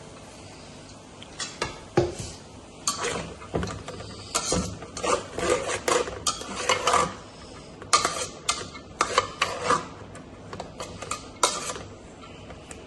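A spoon stirring and scraping through soaked harees grain in a cooking pot: a run of irregular scrapes and knocks against the pot, starting about a second and a half in and stopping about a second before the end.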